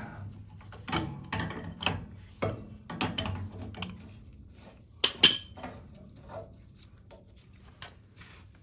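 Hand tools and metal boiler fittings clinking, knocking and scraping in an irregular series of sharp hits, the loudest pair about five seconds in.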